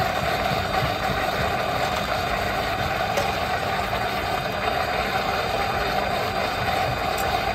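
A motor running steadily, a continuous machine hum with no breaks.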